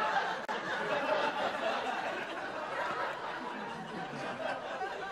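Sitcom studio audience laughing, the laughter slowly dying down.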